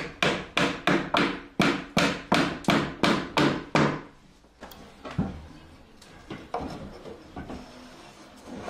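Hammer driving timber wedges into the joints under the treads of a pine staircase. A steady run of sharp blows, about three a second, stops about four seconds in, followed by a few lighter knocks.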